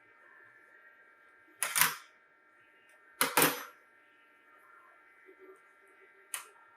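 Spanners and brass pneumatic fittings clinking and clattering as an elbow fitting is worked off a pressure decay switch: two sharp clatters about a second and a half apart, then a shorter click near the end, over a faint steady hum.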